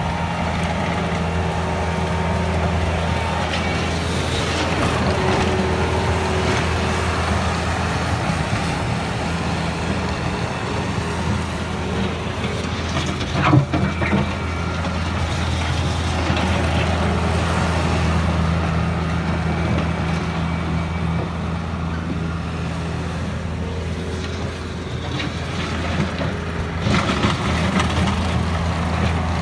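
Bobcat T190 compact track loader's diesel engine running steadily as the machine drives on its rubber tracks, with a single sharp knock about halfway through.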